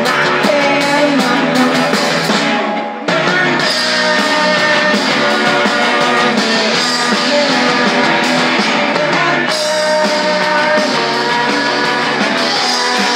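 Garage rock band playing live through a PA: electric guitar, electric bass and drum kit. About three seconds in the cymbals and high end drop out briefly, then the full band comes back in.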